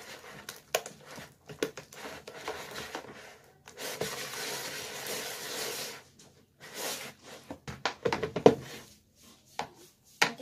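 A hand kneading and squeezing wet, foamy homemade slime in a plastic bowl: scattered soft clicks and rubbing, a steady hiss lasting about two seconds in the middle, and a quick run of sharper clicks near the end.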